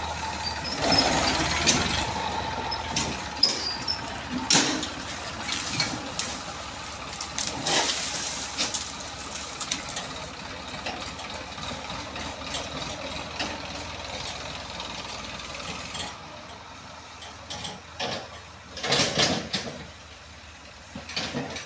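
New Holland 3037 tractor's diesel engine running as it hauls and tips a trolley of soil, with repeated knocks and rattles from the trolley and a louder rattling burst near the end.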